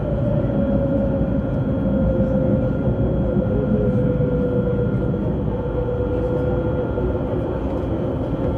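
Alstom Citadis tram running, heard from inside: a steady rumble of the wheels on the rails with the traction drive's whine, which falls slowly in pitch over the first several seconds and then holds.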